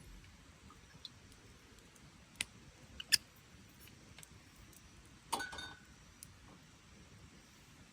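A few light clicks, then a short ringing clink and rattle of small hard objects a little after halfway, over a quiet background.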